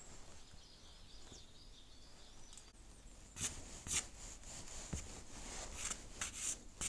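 Stick of soft pastel scraping across a textured painting surface in a series of short, scratchy strokes, starting about halfway through.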